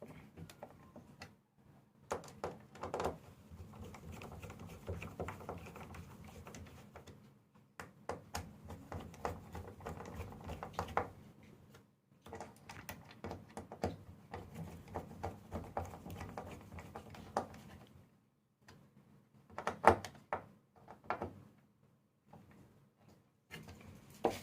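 Plastic keys of a MIDI keyboard being handled and fitted back into the keybed: clicking and rattling in three stretches of a few seconds each, with a few sharper knocks about twenty seconds in.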